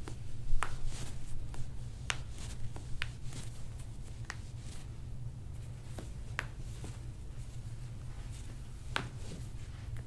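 Toe joints popping as a chiropractor adjusts each toe in turn: a string of separate sharp pops spread over several seconds, the loudest about half a second in.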